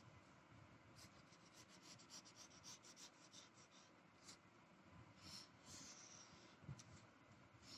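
Faint scratching of a wax crayon on paper, in short irregular strokes as petal outlines are drawn, a little busier about five seconds in.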